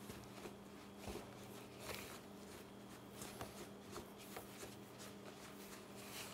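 Faint scraping and soft knocks of a long-handled wooden utensil stirring a stiff, too-dry flour-and-yeast starter dough in a plastic mixing bowl, over a steady low electrical hum.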